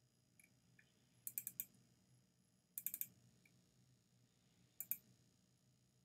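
Faint clicks of a computer mouse: a few short groups of sharp clicks, the two longer groups each like a double-click, with a single click near the end.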